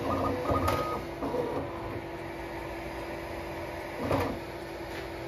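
Bambu Lab X1 Carbon 3D printer purging filament: its motors whir with steady whining tones for the first second and a half over a constant fan hum. A click comes about 0.7 s in and a sharper knock about four seconds in.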